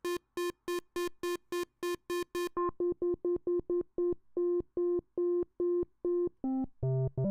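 Roland Juno-106 synthesizer playing one short note over and over, about three or four a second, with each note going to the next voice in turn as the repaired voice chip is tested. The tone turns from bright and buzzy to duller about two and a half seconds in, and a few lower notes of different pitch come near the end.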